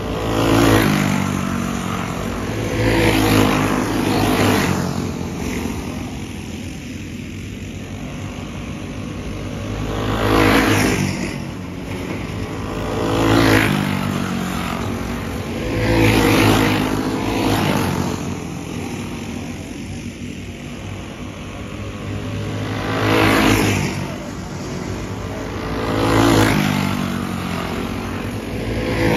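Junior racing go-karts with single-cylinder four-stroke clone engines running flat out on a dirt oval, passing close by again and again; each pass swells and then drops in pitch as the kart goes by, with the pack heard more faintly between passes.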